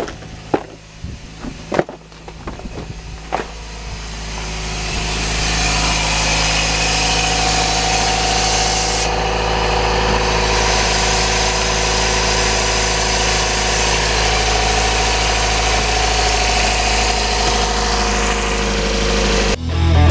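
Car engine idling steadily with its newly replaced exhaust manifold, growing louder about four seconds in and then holding level. A few sharp knocks come in the first few seconds.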